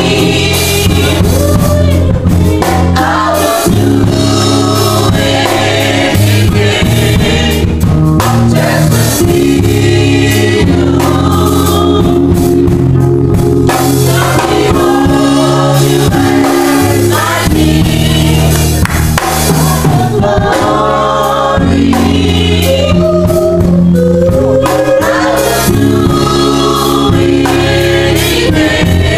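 Youth gospel group singing together into handheld microphones over electric keyboard chords, loud and continuous.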